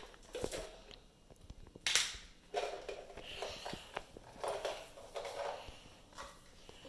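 Rustling, scraping and scattered knocks from a phone being handled and swung about, with a sharp knock about two seconds in.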